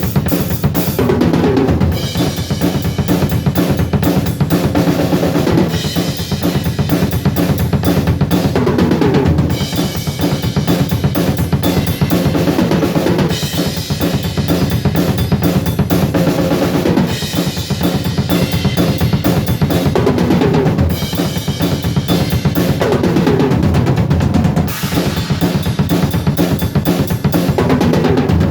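Drum kit with double bass drums, played as a warm-up groove: fast, continuous kick-drum strokes under snare hits and cymbals. The pattern changes every few seconds.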